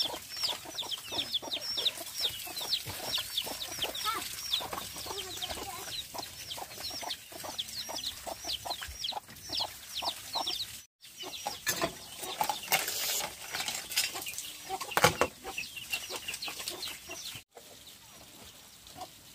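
Chickens calling: a quick run of short, high peeps, about three a second, for the first ten seconds or so. After an abrupt break, scattered clicks and short calls follow, and the sound cuts off again near the end.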